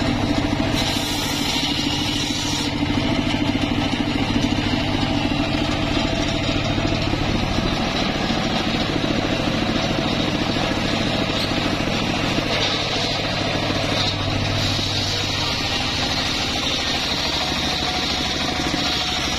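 Homemade circular sawmill running steadily, its engine and spinning blade going without pause. A higher hiss comes in about two-thirds of the way through.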